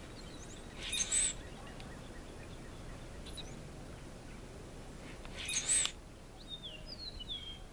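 Wild birds calling: two short, harsh, high calls about four and a half seconds apart, then a few thin falling chirps near the end, over a steady outdoor background.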